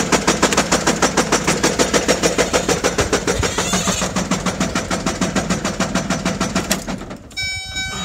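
2006 GMC 5500's LBZ Duramax V8 diesel running with a rapid, even knock, several strikes a second: rod knock after the engine lost oil pressure and was driven on. The knocking stops about seven seconds in, and a steady electronic warning tone follows.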